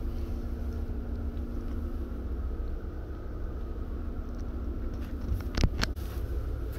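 Low, steady rumble and hum of a small cruise ship's machinery heard inside a passenger cabin, with two sharp knocks about five and a half seconds in.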